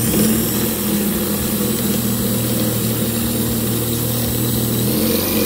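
A small motor running steadily with a constant hum, as from a power tool in use.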